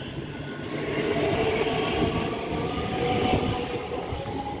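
ScotRail Class 385 electric multiple unit running past the platform and away: a steady rumble of wheels on rail with a faint whine from the traction equipment, swelling about a second in.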